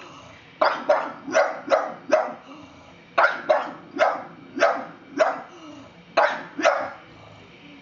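Pug barking at an unfamiliar plastic toy horse: about a dozen sharp barks in three runs with short pauses between them, the wary alarm barking of a dog at a strange object.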